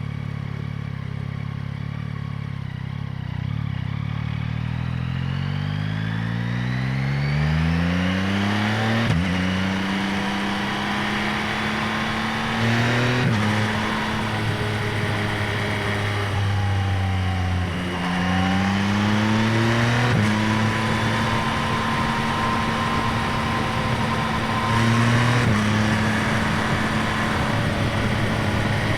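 A 2025 Yamaha MT-09's inline three-cylinder engine running under way, heard close up at the airbox and exhaust. It pulls up steadily through the revs and shifts gear about a third of the way in. It then holds a steady pitch with a few brief changes in revs, falls away and picks up again around the middle, and steps down once more near the end as it shifts.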